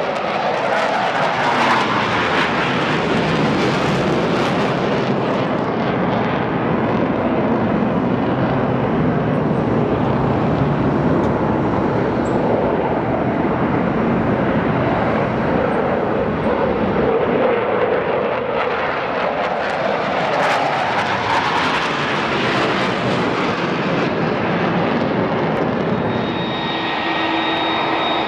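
Twin CFM56 turbofan jet engines of a Boeing 737-500 airliner running, a loud continuous rumble and hiss whose pitch slowly sweeps up and down.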